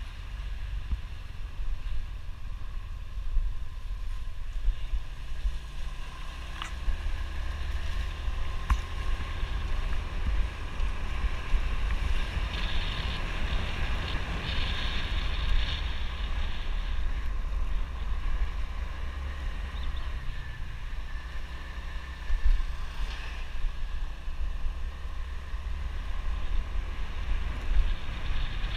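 Wind buffeting the microphone of a camera on a moving motorbike, a heavy steady rumble, with the motorbike's engine running underneath and its pitch rising and falling a couple of times.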